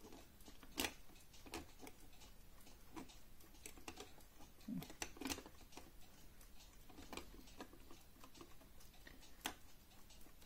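Faint, irregular small metallic clicks and taps of a hand tool on the metal parts of an antique lantern clock movement being assembled, the sharpest about a second in.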